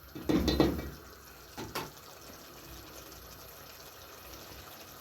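Metal spoon stirring and scraping a pot of frying meat, potatoes and spices, with two quick knocks of the spoon on the pot about a second and a half in, then a faint steady sizzle.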